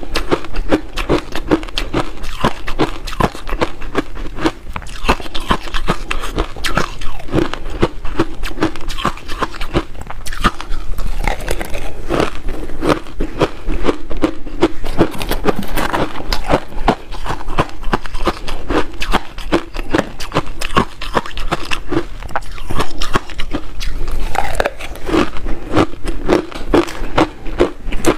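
Close-miked chewing of frozen matcha ice: a rapid, continuous run of crisp crunches. A metal spoon scrapes and scoops in the bowl.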